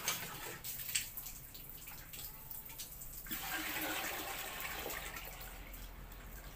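Water poured from a bucket into a plastic drum: a splashing pour that starts about three seconds in and slowly tails off toward the end, after a few light knocks.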